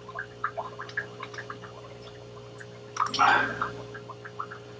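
Paintbrush working thick, wet paint, mixing a little white and yellow into green on a palette: small irregular sticky clicks and squelches, with a longer, louder swish about three seconds in.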